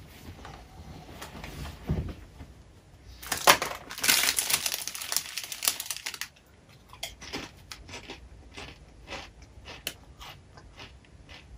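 Plastic chip bag crinkling loudly as it is opened and rummaged for about three seconds, after a soft thump of someone settling onto a couch; then crisp, irregular crunches of tortilla chips being chewed.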